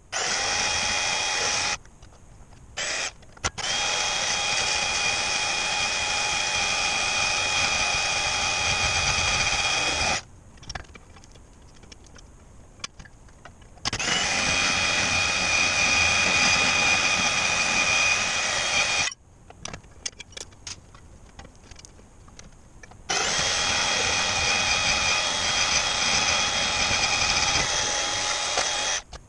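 Portable band saw cutting, running in four long stretches of several seconds with short pauses between, each with a steady whine.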